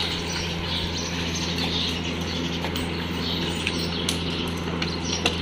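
A steady low hum with birds chirping over it, and a couple of small clicks near the end.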